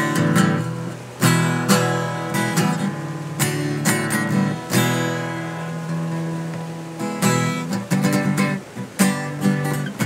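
Acoustic guitar strummed in chords, unaccompanied. About halfway through one chord is left to ring for a couple of seconds, then quicker strums follow near the end.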